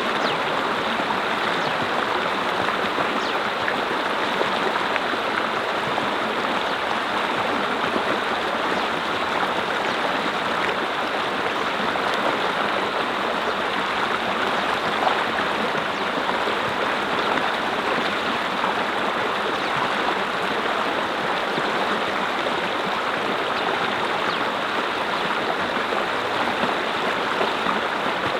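Mountain stream running over rocks: a steady, even rush of water with small splashes and gurgles.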